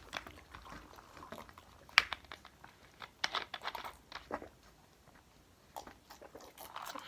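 A person chewing chicken wings close to the microphone, with scattered mouth clicks and smacks, the sharpest about two seconds in and a cluster a little past three seconds.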